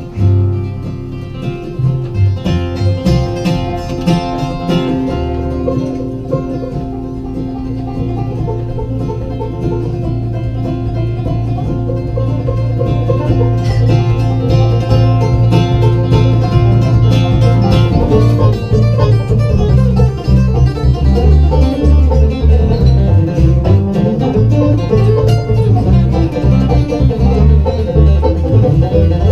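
A folk band's instrumental break, banjo and guitar picking together; it grows louder through the first half and plays fuller and denser from just past the middle.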